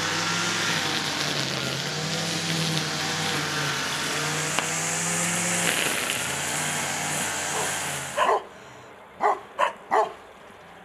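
Petrol brush cutter running, its engine revs rising and falling as it cuts grass. About eight seconds in the engine sound stops and a dog barks four times in quick succession.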